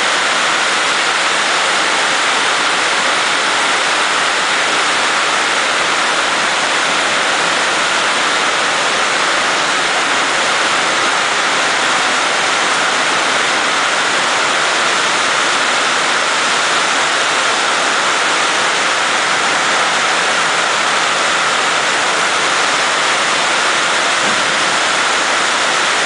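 Heavy rain pounding a steel roof: a loud, steady hiss so strong that a speaking voice is drowned out.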